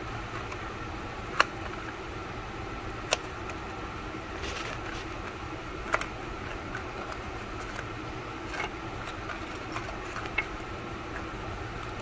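Five sharp clicks of tools or parts being handled at an open engine, spaced a few seconds apart, over a steady hum.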